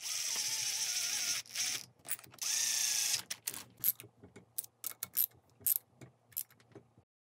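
Cordless power driver spinning a bolt on a two-stroke motorcycle crankcase in two runs, the first about a second and a half long, the second shorter. These are followed by a hand ratchet clicking in short irregular bursts.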